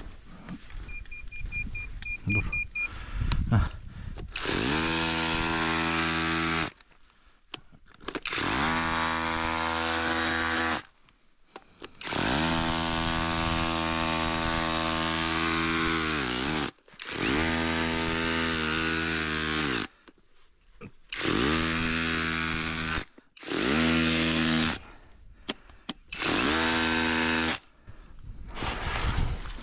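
A handheld electric power tool run in about seven bursts, each from one to four seconds long, with short pauses between. The motor holds a steady pitch while running and winds down at each release.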